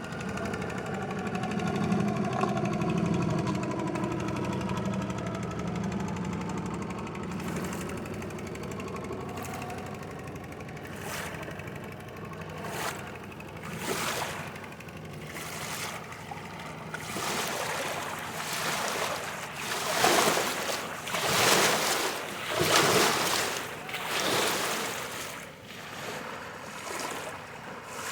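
Boat engine hum on the river, fading away over the first several seconds, followed by river water washing and splashing in irregular surges that grow louder and more frequent toward the end.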